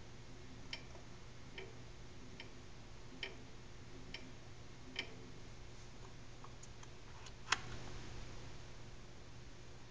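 General International 25-650 lathe running with a steady low hum and a light click repeating about once a second, one louder click about three-quarters of the way through. This is the odd sound the owner cannot track down and thinks might be a bearing in the motor.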